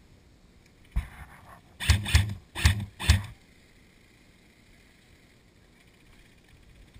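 Airsoft gun firing four short bursts in quick succession, after a single sharp knock about a second in.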